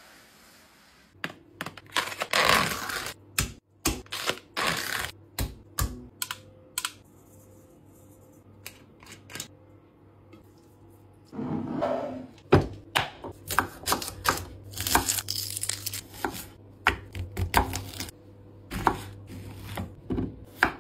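A run of sharp taps and clicks from food preparation in a kitchen, as utensils, bottles and containers are handled on a countertop. A longer rushing sound comes a little past the middle.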